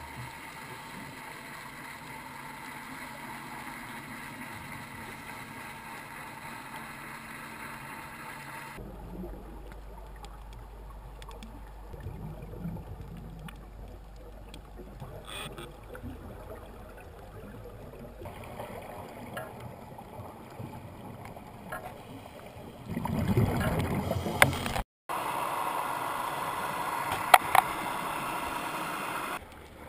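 Underwater sound picked up through a dive camera's housing: a steady hum and hiss of boat engines carried through the water. The texture changes abruptly at several cuts, and a louder rushing noise with a few sharp clicks takes over for the last few seconds.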